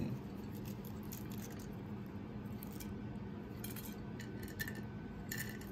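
Sliced almonds shaken from a small ceramic dish onto a dinner plate, making a few faint, light clicks and rustles in the second half over a steady low hum.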